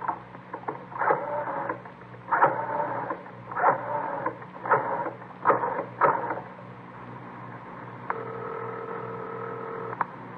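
Rotary telephone being dialed, the dial spun and running back for a string of about seven digits. A steady ringing tone follows in the earpiece for about two seconds and is cut off by a click.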